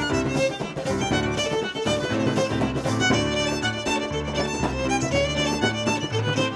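Fiddle music playing as a background track, a melody with regular note onsets over lower sustained accompaniment notes.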